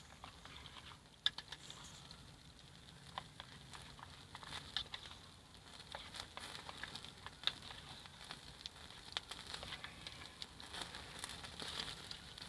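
Wood campfire crackling, with irregular sharp pops several times a second over a light hiss; the loudest pops come about a second in and again just past the middle.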